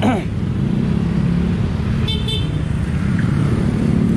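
Street traffic with vehicle engines running, and two quick high-pitched horn toots about two seconds in.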